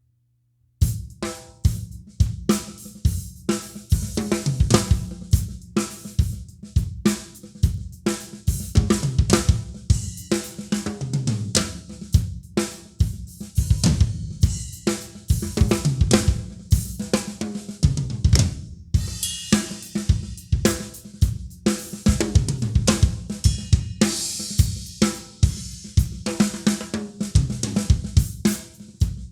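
Drum kit played in a steady groove: bass drum, snare and hi-hat, with cymbal crashes, starting about a second in.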